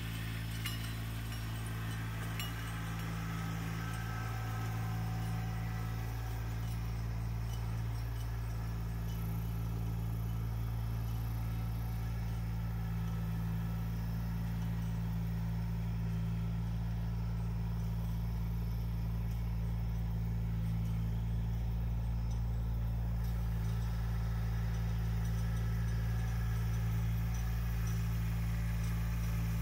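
Compact tractor engine running steadily as the tractor drives over the dirt, growing gradually louder as it comes closer.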